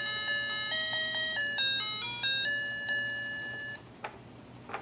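Electronic toy melody in simple beeping notes playing from a baby walker's activity tray, stopping a little under four seconds in. Two soft clicks follow.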